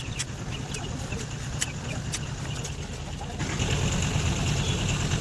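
An engine running steadily with a low rumble, growing louder about three and a half seconds in, with a few sharp clicks in the first half.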